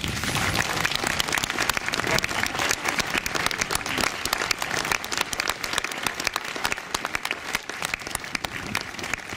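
A crowd applauding, many hands clapping. It starts suddenly and keeps up at a steady level.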